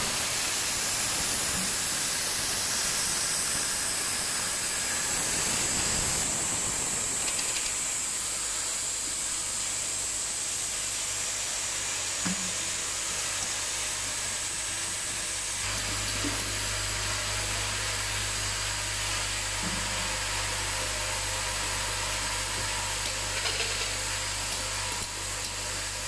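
Automatic pad printing machine and its vibratory bowl feeder running: a steady hiss with a few light clicks, joined by a low steady hum about sixteen seconds in.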